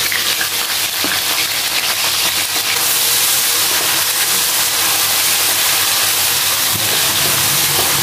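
Chopped garlic, shallots, chilies and lemongrass sizzling in hot oil in a stainless steel wok, stirred with a spatula. The sizzle turns brighter and hissier about three seconds in.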